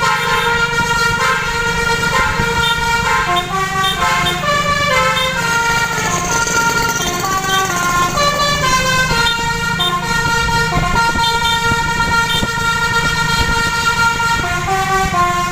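Indonesian bus's multi-tone 'basuri' telolet horn playing a koplo dangdut melody, stepping from note to note with several tones sounding together, over the low steady running of the bus engine.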